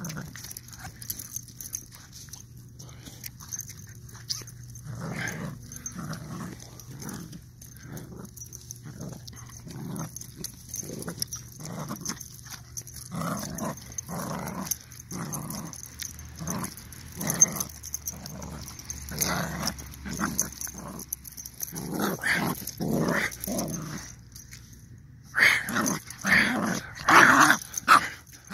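Dog growling in play during rough-housing, in short repeated bursts about one to two a second, with the loudest ones near the end.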